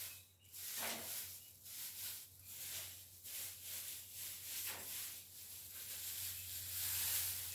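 Faint, irregular rustling of dry straw and coop bedding being moved by hand, over a low steady hum.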